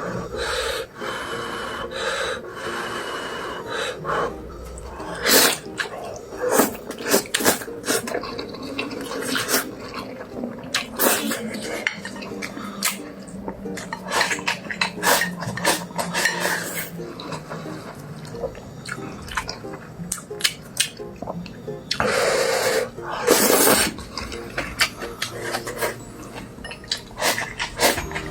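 Utensils clicking, knocking and scraping against dishes in irregular taps, with two short noisy scrapes or rustles a little after the two-thirds mark.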